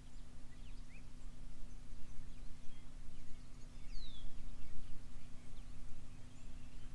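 Steady low hum of a portable generator and air compressor running, with scattered bird chirps and a falling whistle about four seconds in.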